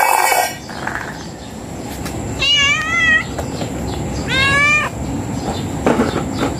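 Domestic cat meowing twice, two wavering calls about a second and a half apart, asking for food as it is about to be fed. A few light knocks near the end as a plastic food tub is set down on concrete.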